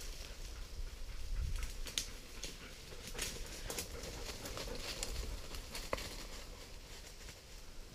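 Faint rustling and crackling in dry leaf litter and brush, with scattered sharp twig snaps and clicks, from movement through thick undergrowth.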